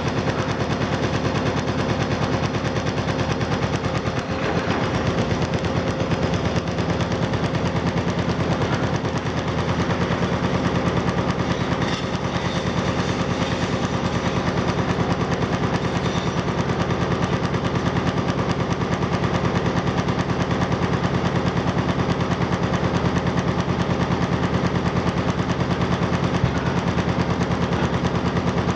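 Excavator-mounted hydraulic breaker hammering concrete in rapid, steady blows without a pause, over the steady running of the machine's diesel engine.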